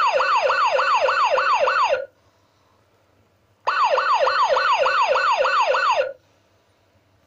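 A 1994 Funrise toy ambulance's electronic siren sounds in fast, repeating falling sweeps, about four a second. It comes in two bursts of about two seconds each, with a short pause between.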